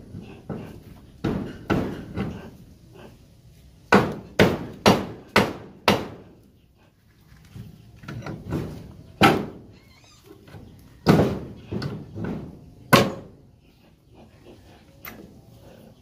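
Hard knocks and clacks of bamboo being worked on an overhead frame, irregular throughout, with a quick run of five sharp knocks about half a second apart around four to six seconds in.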